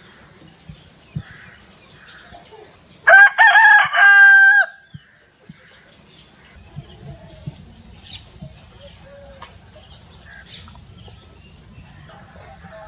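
A rooster crows once about three seconds in, a loud call lasting about a second and a half. Before and after it there is only a faint steady high hiss with a few small scattered sounds.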